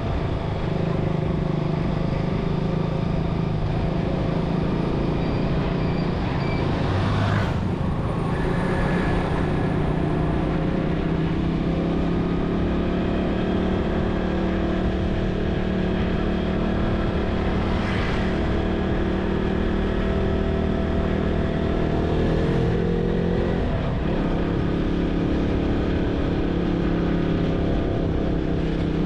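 Motorcycle engine running at riding speed over road and wind noise. Its pitch shifts about three-quarters of the way through as the speed changes, and a few brief swells of noise come and go.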